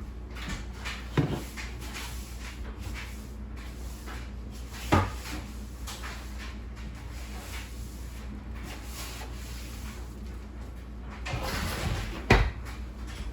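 Three scattered household knocks, the last the loudest with a brief scuffling rustle just before it, over a steady low hum.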